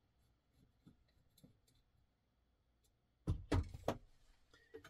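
Small hand tools handled on a rubber work mat: a few faint light clicks, then a short cluster of sharp clicks and knocks just past three seconds in as one bit driver is put down and a metal bit driver is picked up.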